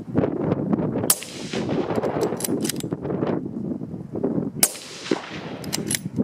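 Two moderated high-velocity centrefire rifle shots about three and a half seconds apart, each a sharp crack with a short ringing tail, heard from about ten feet to the side. A few lighter clicks follow each shot, over steady wind noise on the microphone.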